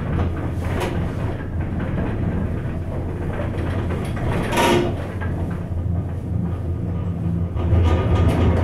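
Von Roll gondola cabin riding along the haul rope, heard from inside: a steady low hum and rumble. About halfway through there is a brief louder rushing swell, and the rumble grows louder near the end.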